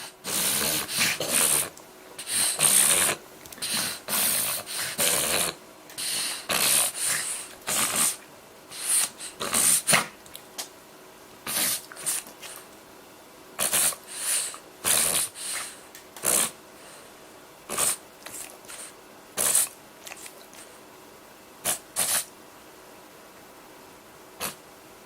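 Eight-month-old French bulldog having a reverse-sneezing episode: repeated noisy snorting breaths drawn in hard through the nose, in quick runs at first, then more spaced out, dying away a few seconds before the end.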